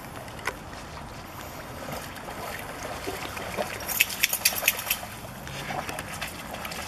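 A dog swimming and then wading out of a pond, the water lapping lightly, with a quick run of splashes about four seconds in as it climbs out of the water.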